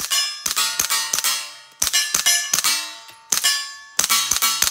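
Rapid suppressed 9mm shots from a CZ Scorpion EVO 3 striking steel plate targets, each hit followed by the plate's ringing clang. About a dozen hits come in quick groups of three or four, the plates ringing at different pitches, and the steel's ring is louder than the quiet suppressed report.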